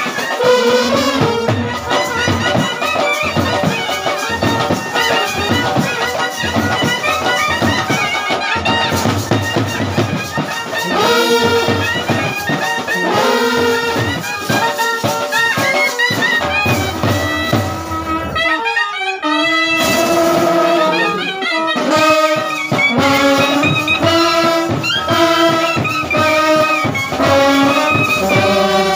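A brass band playing live: horns carry the melody over a bass drum beat, with a short break about two-thirds of the way through.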